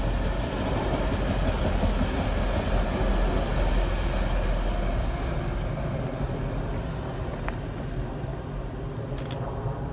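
Class 185 diesel multiple unit running past, its underfloor diesel engines and wheels on the rails making a steady rumble that fades over the last few seconds.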